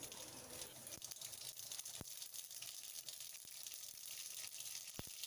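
Mustard seeds sizzling faintly in hot oil for tempering, with two sharp pops about three seconds apart as the seeds begin to splutter.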